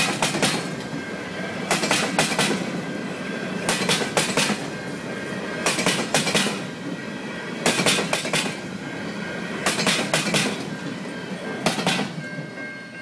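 Freight train's covered gondola cars rolling past, their wheels clacking over a rail joint in a quick group of clicks about every two seconds over a steady rumble.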